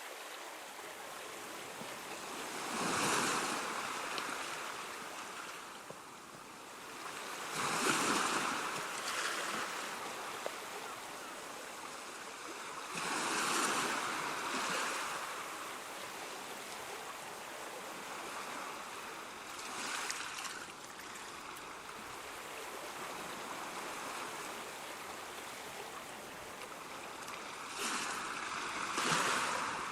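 Ocean waves breaking, a louder surge of surf every few seconds over a steady wash of water.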